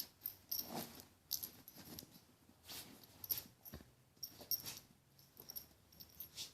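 A freshly bathed dog making several faint, short sounds spread over a few seconds, not barking.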